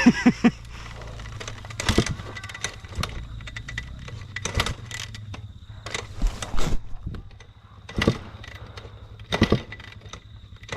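Dirt bike being kicked over again and again without starting: a clank from the kickstart stroke about every one and a half to two seconds, with a low steady hum under the first half.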